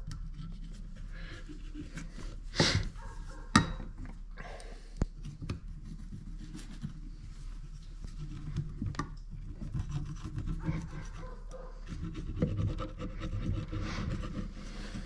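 An old piston oil ring scraping around the ring grooves of a piston, clearing out carbon to leave a smooth seat for new rings: steady metal-on-metal rubbing and scratching. There are a few sharp clicks a few seconds in.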